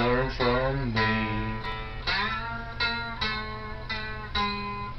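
Guitar music: a string of plucked notes, a few of them bending in pitch near the start.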